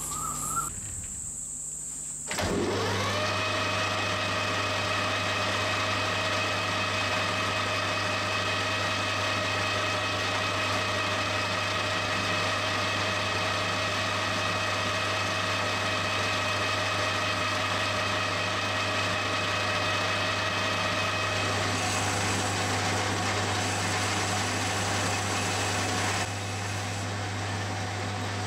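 Metal lathe starting up about two and a half seconds in, its whine rising briefly and settling into a steady running whine over a low hum. The tone shifts slightly and the sound gets a little quieter near the end.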